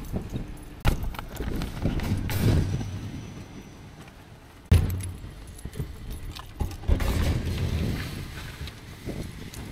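Metal shopping trolley rattling and clanking as it is pushed along, with a loud sharp knock about halfway through. After that come more knocks and rattles as bags and bottles are lifted out of the wire basket.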